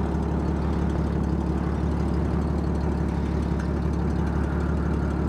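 Dodge M37 truck's flathead straight-six engine idling steadily, with an even low rumble and no revving.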